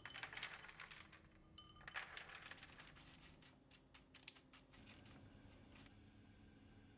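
Chopped hazelnuts and slivered almonds clattering onto a parchment-lined baking sheet in two quick bursts of small rattles. A few scattered ticks follow as the nuts are spread out by hand.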